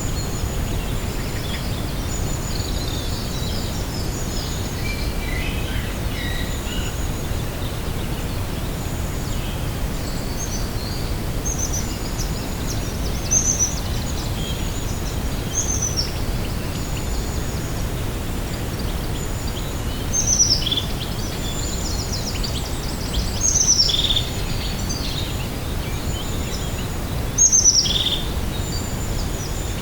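Small songbirds chirping and trilling over a steady low background rumble, with a louder quick falling call about two-thirds of the way in and twice more near the end.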